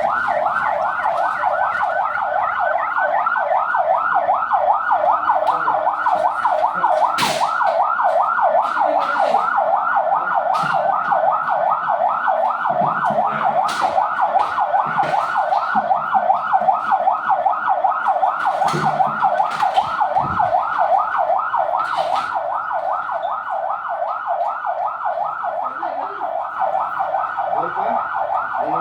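Electronic siren in a fast yelp, a few quick rising sweeps a second without a break, sounding as the alarm of an earthquake drill. A few sharp knocks are heard over it.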